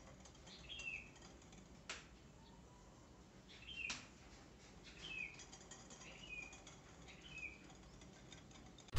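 Faint bird chirps: five or so short, quick falling notes at uneven intervals, with two light clicks among them, over an otherwise very quiet background.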